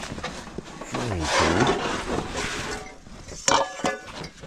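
Gear being rummaged out of a nylon backpack, fabric rustling and rubbing, with a man's low, drawn-out groan about a second in and two sharp clicks near the end.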